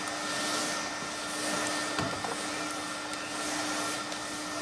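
Upright vacuum cleaner running steadily, a constant motor hum and whine over rushing air, swelling a little as it is pushed over a rug.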